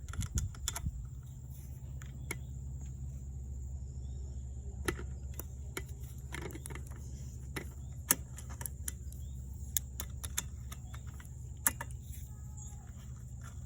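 Small metallic clicks and taps of a multitool wrench working a nut on a bicycle, scattered irregularly, with a few sharper ticks about two, five, eight and twelve seconds in.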